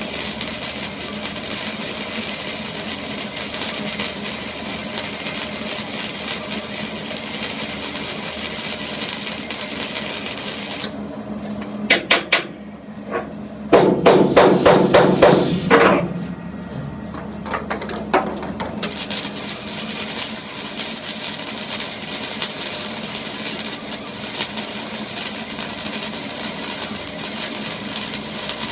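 Hammer strikes during a dump bed repair: a few single blows, then a quick run of rapid strikes about halfway through, over a steady engine-like running noise.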